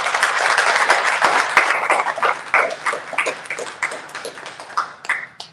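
Audience applauding, loudest in the first couple of seconds, then thinning out and dying away near the end.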